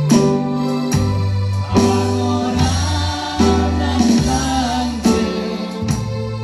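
A church hymn sung by a small group of voices into microphones, with bass guitar and plucked guitar accompaniment. A new bass note is plucked roughly every second, under a slow sung melody.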